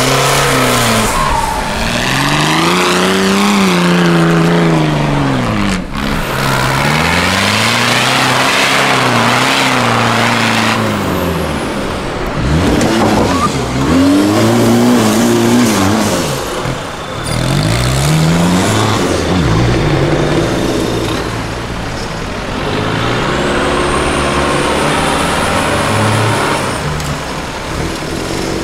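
Off-road competition buggies and 4x4s with their engines revving hard in repeated surges, each rising and falling over a couple of seconds, as they climb the steep walls of a sand pit.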